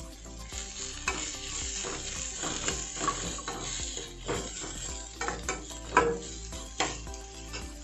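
Sliced vegetables frying in hot oil in a stainless steel kadai, sizzling steadily while a metal slotted spatula stirs them, with many short scrapes and clinks of metal on the pan.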